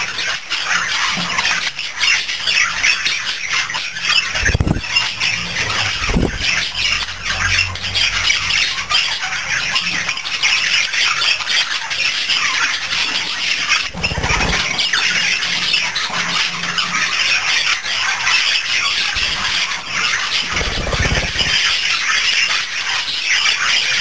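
Budgerigars chattering and warbling without a break, a busy stream of quick chirps and squawks, with a few short low thumps now and then.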